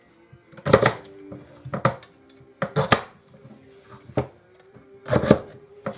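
Potatoes being cut into wedges with a hand-press wedge cutter, making five sharp knocks and crunches against the cutting board, about one a second.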